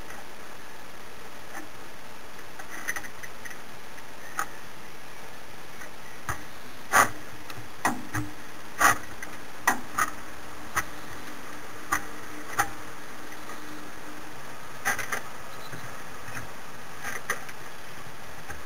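Sharp, irregular clicks and knocks, about a dozen, from a trolley jack and its handle being worked at a four-wheel-drive truck's wheel, over a steady hiss.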